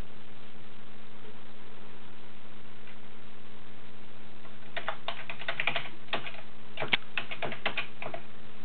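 Typing on a computer keyboard: a quick run of key clicks starting about halfway in and stopping shortly before the end, over a steady low hum.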